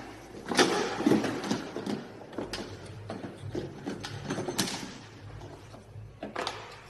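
Irregular knocks, clicks and rattles, bunched closely in the first half and sparser later, over a low steady hum that starts about two seconds in.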